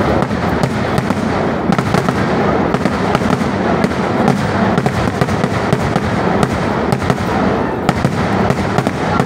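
Kerala temple fireworks (vedikettu): aerial shells bursting overhead in a loud, unbroken barrage of bangs and crackling.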